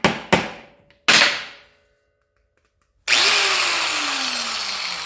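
Grinder blipped on briefly three times, then switched on once and left to spin down, its whine falling steadily in pitch. It is being run to check whether a welded-on nut adapter spins true.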